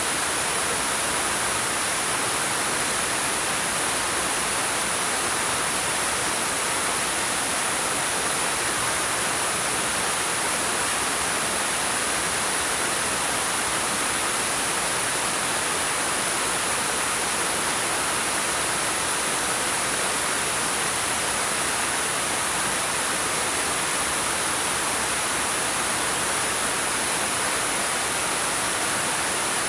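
Waterfall splashing down over rocks: a steady, unbroken rush of falling water.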